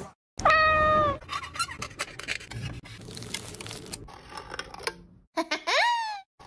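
Foil seal on a tin of milk powder being peeled back and a plastic scoop scraping through the powder: irregular rustling and scraping with small clicks. A short voiced call about half a second in and a rising-then-falling call near the end are louder than the scraping.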